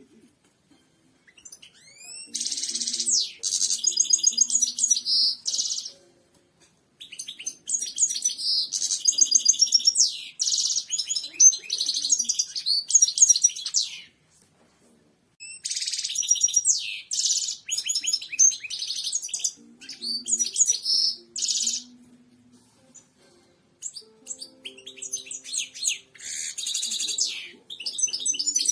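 European goldfinch singing: four long phrases of rapid twittering and trilling, high-pitched, with short pauses between them.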